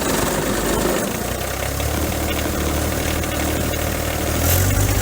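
John Deere 2025R's three-cylinder diesel engine running just after starting, settling into a steady idle about a second and a half in and getting a little louder near the end. It is being run to purge air from the fuel system after a fuel filter change.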